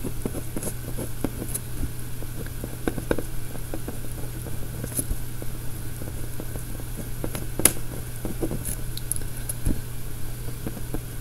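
Pen scratching and tapping on paper while small details are drawn: a string of faint ticks and scrapes, with one sharper click past the middle, over a steady low hum.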